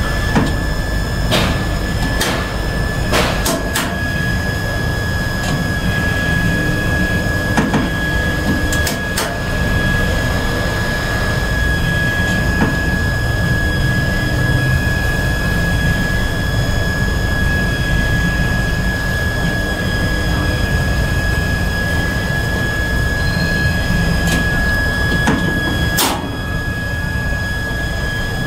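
Elevator control cabinet running with a steady hum and a thin high whine, broken by several sharp clicks as its panel switches are pressed and relays answer. A louder click comes about 26 seconds in, after which the hum drops slightly.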